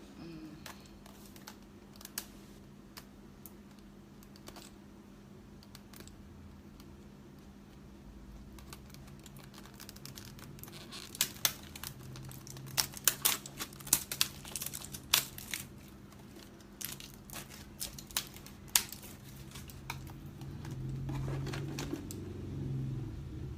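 Plastic packaging of an NYX eyeshadow palette being crinkled and torn open by hand, with sharp crackles and clicks that come thickest in the middle. A low rumble builds near the end.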